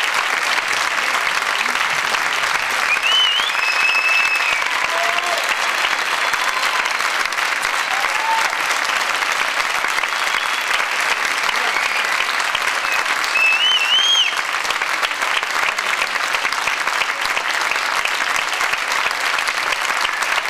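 Large audience applauding steadily, with a few brief high calls rising over the clapping about three seconds in and again about thirteen seconds in.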